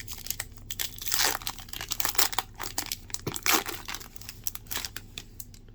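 Trading cards being handled and flipped over one after another: crinkly rustling, sharp ticks and several short swishes of card sliding against card.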